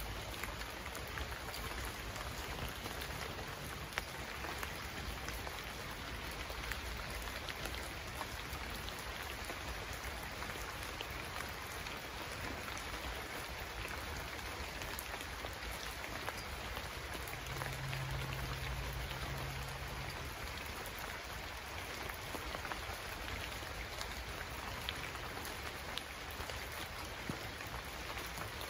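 Steady heavy rainfall with scattered drops ticking. A brief low hum comes in about two-thirds of the way through.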